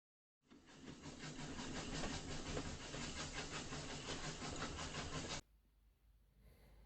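Train sound: a dense, rapid clatter over a low steady hum, starting about half a second in and cutting off abruptly about five seconds later, followed by faint room tone.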